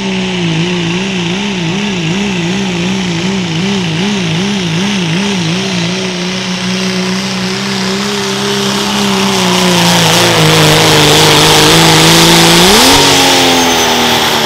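Modified diesel pickup pulling a sled at full throttle. For the first few seconds the engine note wobbles up and down about twice a second, then it holds steady. It dips about ten seconds in, then grows louder and climbs sharply near the end.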